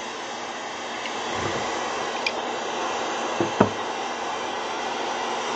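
Steady rush of wind over an RC glider's onboard camera microphone in flight, with a few soft knocks around the middle.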